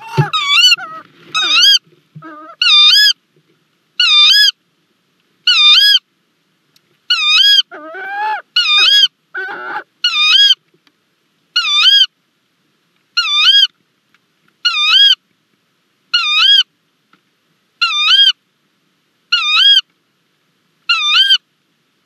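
Tawny owl giving a squeaky call with a wavering pitch over and over, about every one and a half seconds. Lower, rougher calls are mixed in during the first ten seconds.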